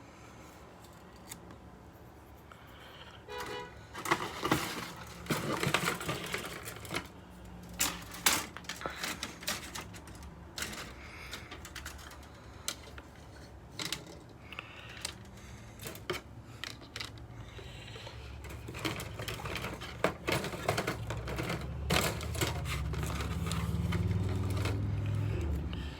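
Plastic model-kit parts and packaging being handled: irregular clicks and clatters of plastic runners knocking together, with bag crinkling in between. A low hum builds under it near the end.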